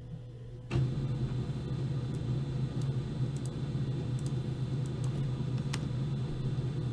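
Steady low rumbling background noise that starts abruptly about a second in, with a few faint clicks.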